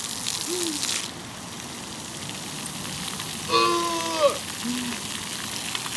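Splash-pad ground jets spraying water in a steady hiss. A high voice calls out once, about three and a half seconds in.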